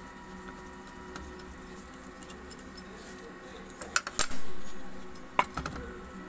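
Metal parts of a common rail high pressure pump knocking and clinking against the pump housing as they are pulled out of its bore by hand. A cluster of clicks comes about four seconds in, the loudest fading out over about half a second, and another sharp click follows about a second later, over a steady background hum.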